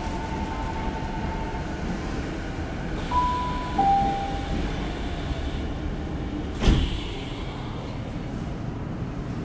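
Tokyu 6000 series commuter train standing at a station with a steady equipment hum. About three seconds in, a two-note falling door chime sounds, and about seven seconds in, the sliding doors shut with a single sharp thump.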